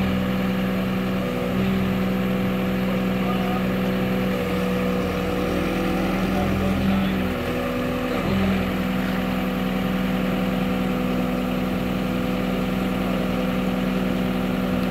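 Engine of a large marina boat forklift running steadily near idle, its note dipping briefly a few times in the first half.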